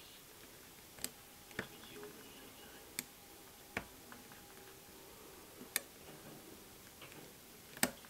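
Single-pin picking of a Jeddo five-pin euro cylinder lock: a pick working the pins under tension, faint scraping broken by about six sharp metallic clicks at irregular intervals, the loudest near the end.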